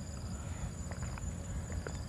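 A man drinking water from a glass: a few short gulps near the middle. Behind it, a steady high insect drone and a low outdoor rumble run throughout.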